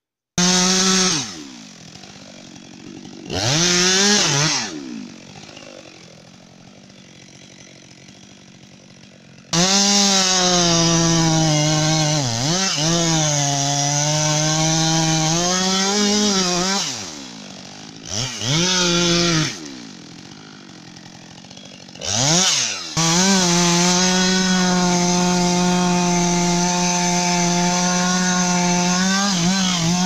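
Two-stroke chainsaw revved in short blips between spells of idling, then running at full throttle for long stretches as it cuts the felling notch into the base of a standing tree. The engine pitch sags and recovers as the chain bites into the wood.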